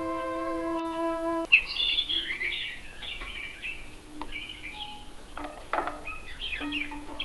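A held musical note cuts off about a second and a half in. It is followed by a run of quick, high-pitched chirps and trills, warbling up and down, with a few sharp clicks among them. A low steady tone comes back near the end.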